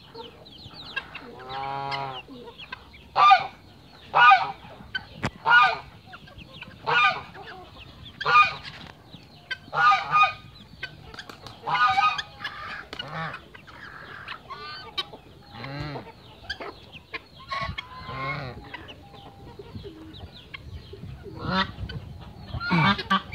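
Young Belgian d'Uccle bantam chicks calling: a run of loud peeping calls, about one every second or so, then softer scattered chirps and clucks, rising again near the end.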